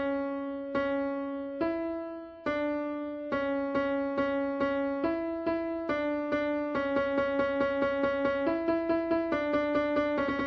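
Black MIDI file played back on a synthesized piano: a simple melody starting suddenly, built from masses of rapidly repeated notes. The note changes come about once a second at first and grow faster and faster.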